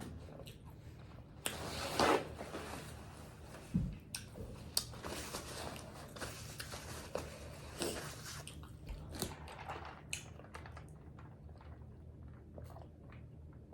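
Close-miked eating of tacos: biting and chewing with scattered crunches and wet mouth clicks, the loudest bite about two seconds in.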